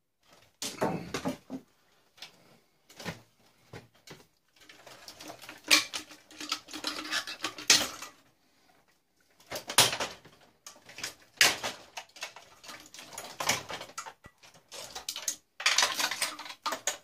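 An old tube television being taken apart by hand for scrap: irregular knocks, clatters and rattles of plastic and metal parts, with stretches of scraping and rustling as wire and parts are pulled out.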